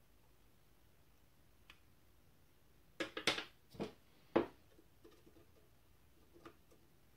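A cluster of sharp clicks and light knocks from handling a camera prism finder and setting small metal tweezers down on a wooden desk, about three to four and a half seconds in, the last the loudest; a few faint small ticks follow.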